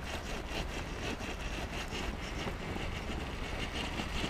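1/10-scale RC rock crawler's electric motor and geared drivetrain whining under load as it strains at a steep rock ledge, the high whine surging and dropping again and again as the throttle is worked.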